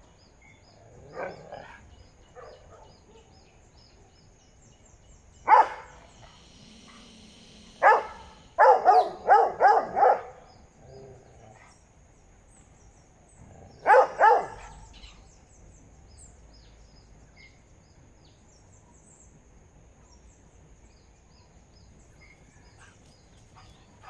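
Dogs barking at a water monitor lizard they have chased up a coconut palm: a few single barks, then a quick run of about five, then a pair, with long gaps between.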